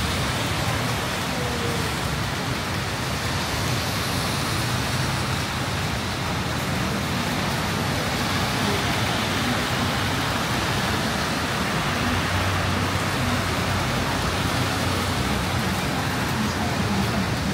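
Heavy rain pouring steadily, with a low hum of road traffic underneath.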